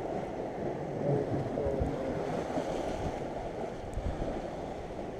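Steady wind buffeting the microphone over waves washing against a concrete breakwall.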